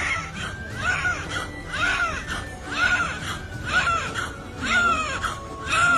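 An infant crying in repeated short wails, each rising and falling in pitch, about one a second.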